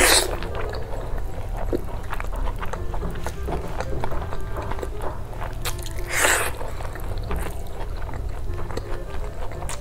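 Close-miked eating sounds of a person biting into and chewing fried sunny-side-up eggs, with many small clicks. Two louder bites stand out, one right at the start and one about six seconds in.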